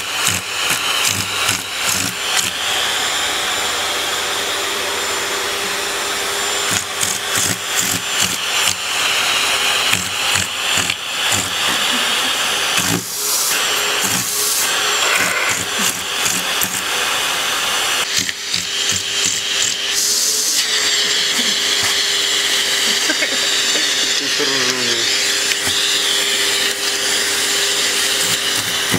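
Vacuum cleaner running with a steady hum and hiss, broken throughout by many short knocks and clatters.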